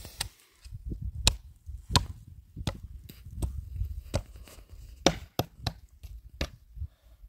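A series of sharp chopping or knocking strikes, about a dozen, unevenly spaced, over a low rumble.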